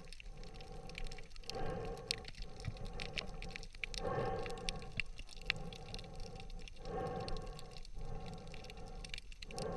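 Underwater sound picked up by a camera in its waterproof housing: a muffled water rush with a steady hum, sprinkled with many faint clicks, which dips briefly about every second or so.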